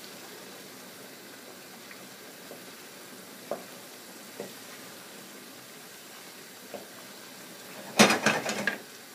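Tomato and onion sauce base sizzling steadily in a frying pan while a wooden spatula pushes it around, with a few soft knocks of the spatula on the pan. About eight seconds in, a loud burst of knocks and clatter.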